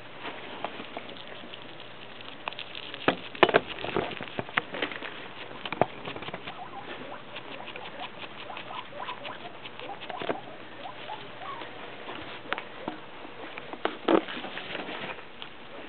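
Guinea pigs rummaging and feeding in loose hay: a steady rustling and crunching of hay, broken by sharp clicks and knocks now and then, the loudest a few seconds in and again near the end.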